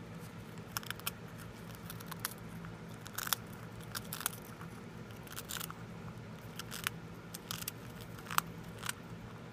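Long-haired Syrian (teddy bear) hamster gnawing a cracker: irregular crisp crunches in small clusters every second or so, over a low steady hum.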